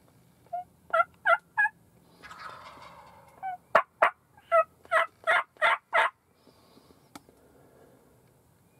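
Wild turkey gobblers gobbling at close range: a short gobble about a second in, then a longer, louder one from about three and a half seconds.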